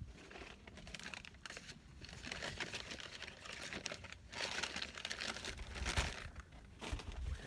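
Food packaging crinkling and rustling in the hands, in irregular crackling handfuls, as chips are taken out. Low rumbles come in near the end.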